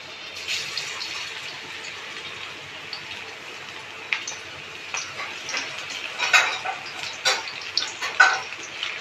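Pakora batter hitting hot oil in a kadhai and deep-frying: the oil sizzles up as the batter goes in, with sharp crackles and pops growing more frequent in the second half.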